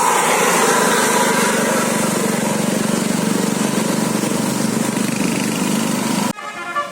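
Steady engine and road noise of a bus. About six seconds in it cuts off abruptly to a musical multi-tone air horn (telolet) playing changing notes.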